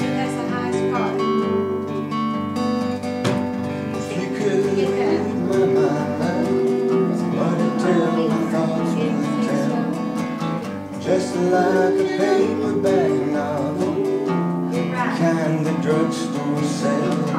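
Acoustic guitar strummed in a steady rhythm, with a man's voice singing along at times.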